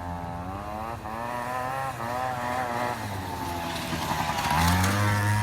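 Small moped engine running under varying throttle, its pitch rising and falling, then revving up louder about four and a half seconds in.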